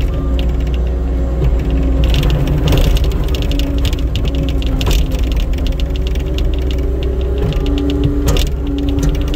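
Skid steer engine running hard with a rising and falling hydraulic whine and metal clatter, heard from the cab, as it pushes a Snow Wolf Ultra 96 plow through very damp, heavy snow.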